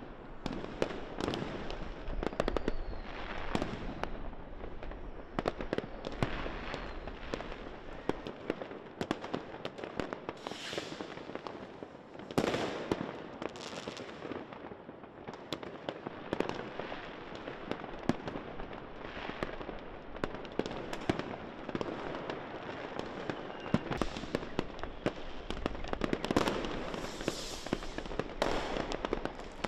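Fireworks and firecrackers going off across a city: a continuous barrage of bangs and crackling, with a heavier blast about twelve seconds in.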